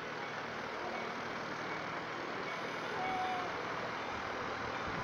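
Steady ambient background noise: an even hiss with no distinct events.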